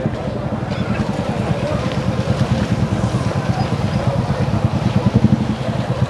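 Motorcycle engine running steadily at low speed close by, a fast, even putter.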